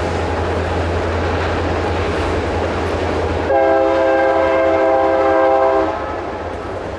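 A train's air horn sounds one long blast of several steady tones together, starting about halfway through and cutting off about two and a half seconds later, over a steady rumbling noise.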